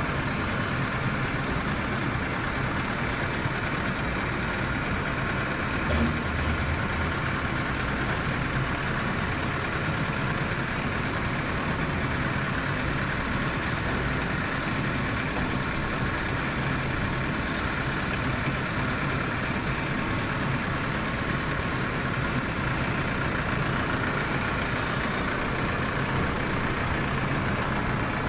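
Diesel tractor engine running steadily at a constant speed, with a brief knock about six seconds in.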